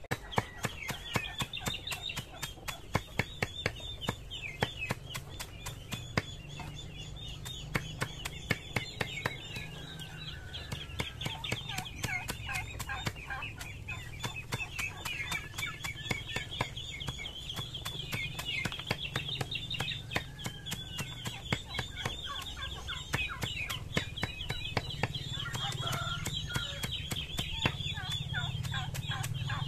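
Rapid chopping of leafy greens for animal feed on a concrete block, sharp strikes several times a second, with chickens clucking steadily throughout.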